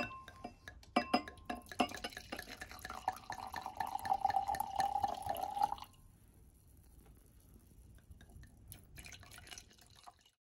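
Red wine poured from a bottle into a stemmed wine glass: splashing and glugging, with a pitched ringing from the glass as it fills that stops about six seconds in. After that comes a fainter pour with a few light clinks.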